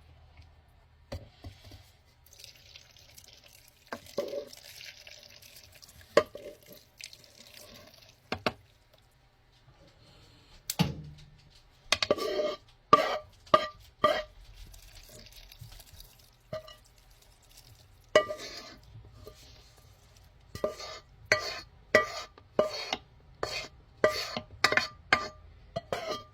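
A spoon stirring in a jar, clinking against the side with a short ringing tone. The clinks come in scattered groups at first, then quick and regular, about two a second, for the last several seconds.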